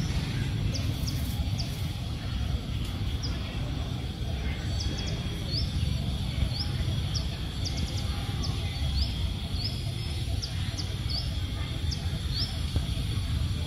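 Outdoor ambience: a small bird giving short, sharp rising chirps again and again, thickest through the middle of the stretch, over a steady low rumble and a faint steady high whine.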